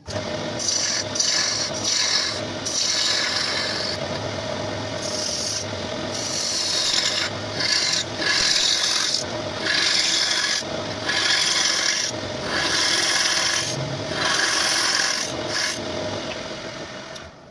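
Hand-held long-handled turning tool cutting into a spinning wooden bowl blank on a motor-driven lathe, hollowing the inside. A loud scraping hiss swells with each pass of the tool, about once a second, over a steady hum from the lathe.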